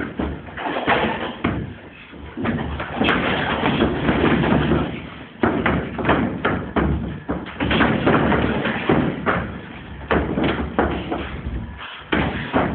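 Gloved sparring strikes landing: a run of irregular thuds and slaps, several a second at times, with pauses between flurries.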